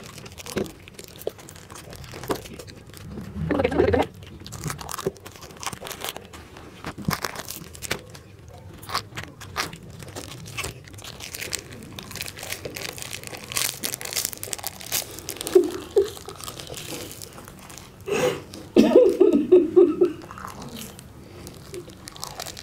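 Plastic chocolate-bar wrappers crinkling and tearing as they are bitten and pulled open with the teeth, mixed with crunching and chewing. Louder muffled vocal sounds break in about four seconds in and again a few seconds before the end.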